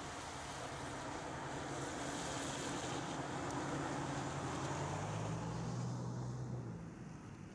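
A motor vehicle passing: a low engine hum and rushing noise swell to a peak about five seconds in, then fade away near the end.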